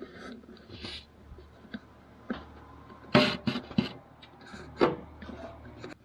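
Irregular scraping and knocking of an inspection camera probe against the sheet metal inside a gas furnace's heat exchanger. A cluster of loud knocks comes about three seconds in and another near the five-second mark.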